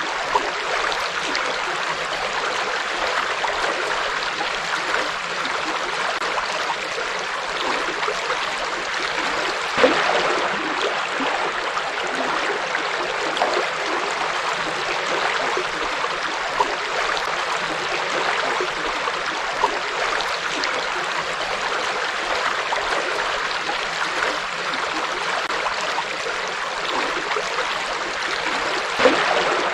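A forest river flowing steadily, an even rush of water over rocks. Brief louder splashes come about a third of the way in and again near the end.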